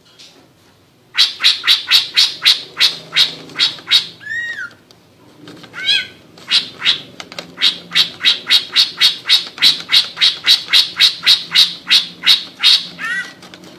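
Greater green leafbird (cucak ijo) calling 'ngekek': long rapid runs of sharp, evenly repeated high notes, about five a second. Two arched whistled notes come between the two runs.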